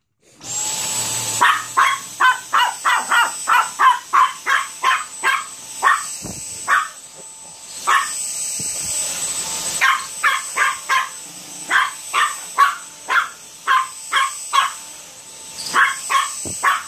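A Dyson handheld cordless vacuum cleaner starts up about half a second in and runs with a steady high whine, while a Chihuahua barks at it over and over, about two to three barks a second, pausing for a couple of seconds near the middle and again near the end.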